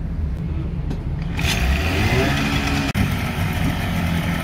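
Tohatsu 15 hp outboard motor catching on a hand pull-start about a second and a half in, revving up and then running steadily, its lower unit churning the water in a test drum.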